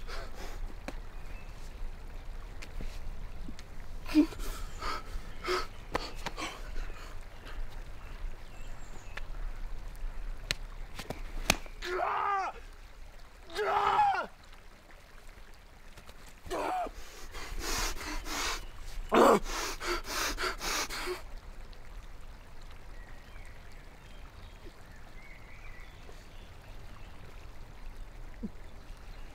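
A wounded man gasping and crying out in anguish: ragged breaths, then two wavering wails about midway and a longer, harsher cry soon after, trailing off into faint breathing.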